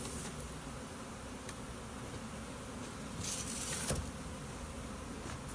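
A large honeybee swarm buzzing steadily. Bees are being brushed and shaken into a box. There is a brief rustle a little past halfway and a single knock just after it.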